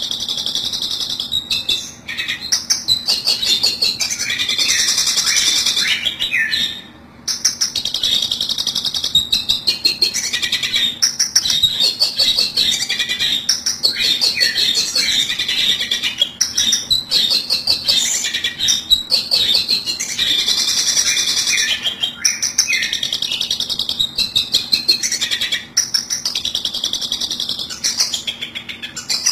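Long-tailed shrike (cendet) calls used as a lure: a dense, continuous run of rapid, repeated high notes, with a short break about seven seconds in.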